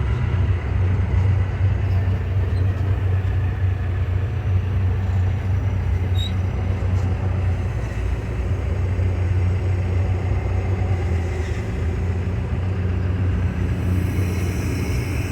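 John Deere backhoe's diesel engine running steadily with a low, even hum.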